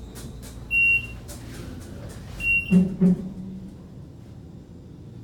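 Elevator cab's electronic signal sounding two short high beeps about two seconds apart. Just after the second beep come two louder low-pitched sounds close together, as the car reaches the roof level. A low steady hum runs underneath.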